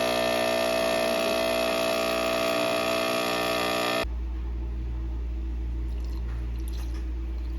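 Electric appliance running with a steady, buzzing hum, cutting off suddenly about four seconds in and leaving a lower steady hum with a few faint ticks.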